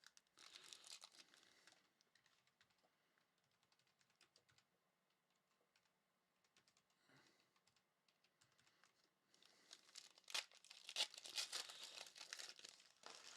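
Faint crinkling and rustling of trading cards and pack wrappers being handled, with light clicks. There is a short bout just after the start, scattered clicks in the middle, and a longer stretch of crinkling near the end with one sharp snap in it.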